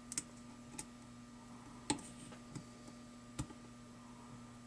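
Faint, scattered metallic clicks of a lock pick and tension wrench working the spool pins inside an American Lock 1100 series pin-tumbler padlock, about half a dozen at uneven intervals, over a low steady hum.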